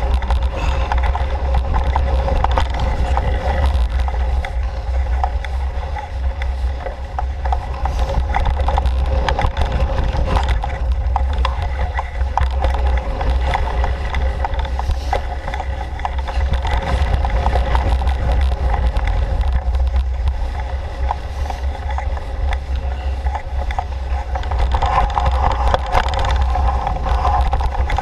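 Bike riding over a dirt trail, heard from a GoPro on the bike: a steady low rumble of wind and tyres with constant small rattles and clicks from the bike and mount.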